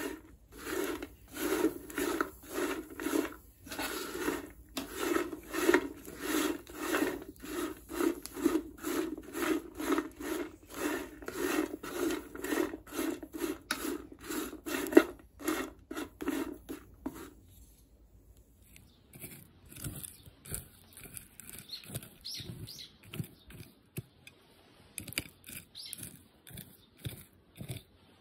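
Dried butterbur roots being dry-roasted in a pan, a wooden spatula scraping and turning them in steady strokes about twice a second; this is the fourth roasting, done after the roots have been aged, in making butterbur root tea. About two-thirds of the way in the scraping stops and gives way to fainter, scattered light rustles and clicks.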